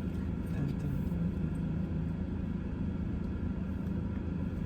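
Steady low hum of a running vehicle engine, with no clear events standing out.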